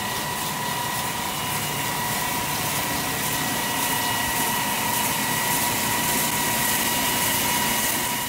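Diamond wire stone saw running, its wire travelling over the guide wheels and cutting through a stone block: a steady, loud mechanical hiss with a constant high whine.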